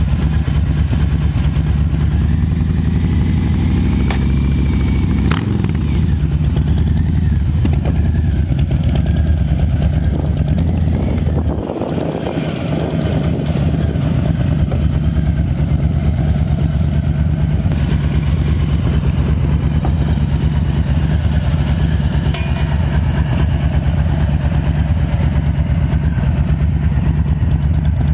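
Harley-Davidson 2020 Low Rider S's Milwaukee-Eight 114 V-twin running through Vance & Hines slip-on mufflers, idling steadily with a brief dip in level about twelve seconds in.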